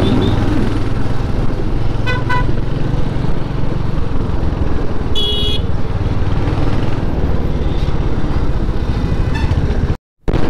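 Motorcycle engine running steadily while riding in traffic. Two short horn honks come about two seconds in and another higher-pitched horn beep around five seconds. The sound cuts out for a moment near the end.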